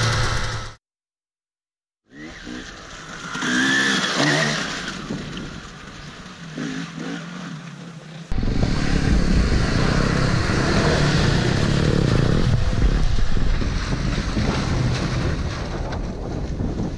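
Motocross bike engines idling, then cut off for about a second and a half. Off-road engines come back at a lower level, and about eight seconds in a 4x4 SUV engine running hard through deep mud starts abruptly and stays loud and steady to the end.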